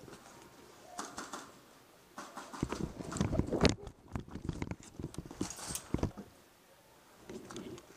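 Footsteps crunching over a gritty hard floor, with clothing and gear rustling, busiest and loudest about two to four seconds in.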